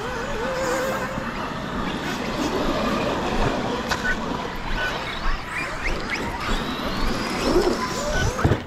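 Several brushless electric RC monster trucks running hard on a dirt track, their motor whine rising and falling in pitch as they accelerate and slow, over a steady noisy haze.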